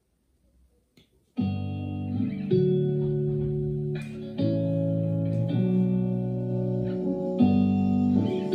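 A guitar-led pop song intro, chords changing every second or so, starting suddenly about a second and a half in as it plays back through a homemade wooden soundbar speaker in a small room.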